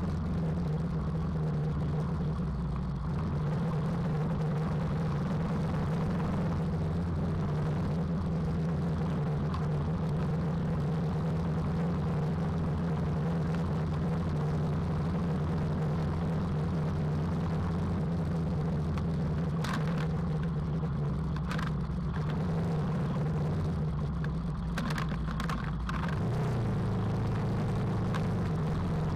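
KTM 390 Adventure's single-cylinder engine running steadily at an even trail-riding pace, with a slight change in the engine note near the end. A few brief clicks and knocks come in the last third.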